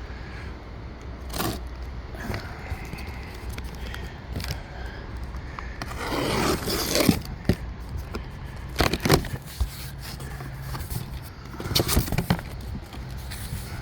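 Cardboard shipping box being cut open and handled: scraping of cardboard and packing tape with scattered clicks and knocks. The longest scrape comes about halfway through.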